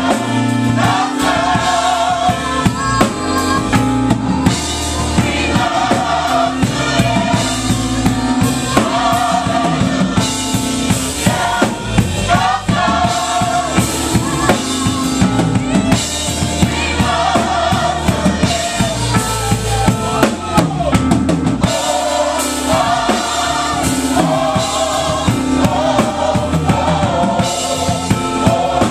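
Gospel choir singing a song, backed by a drum kit and a low bass line.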